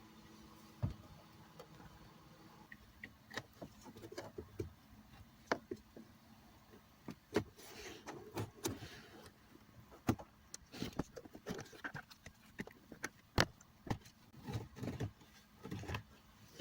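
Hands working the plastic cabin air filter access behind a car's glove box: irregular clicks, knocks and rustling as parts are handled and snapped into place.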